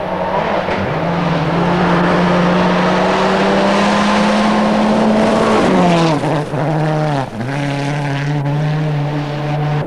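Mitsubishi Lancer WRC rally car's turbocharged four-cylinder engine at full throttle on a gravel stage, its pitch climbing slowly. About six seconds in the pitch drops, with two brief sharp cuts in the engine note, then it holds steady again as the car passes.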